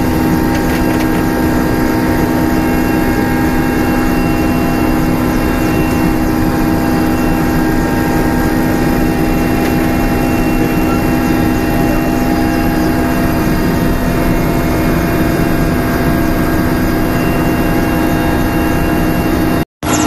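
Helicopter cabin noise: the steady drone of the engine and rotor heard from inside the aircraft, with a couple of constant low hums. It drops out for an instant near the end.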